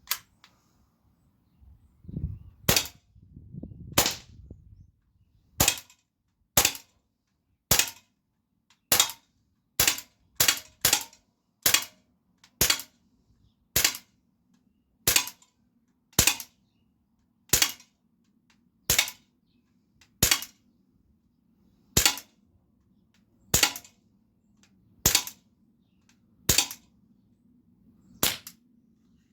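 Glock 17 replica pellet air pistol firing a string of about two dozen sharp shots, roughly one a second, with a few quicker follow-up shots in the middle.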